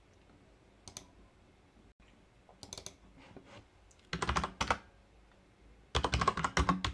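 Keystrokes on a computer keyboard: a few scattered clicks, then a quick run of keys about four seconds in and a denser flurry near the end as short commands are typed.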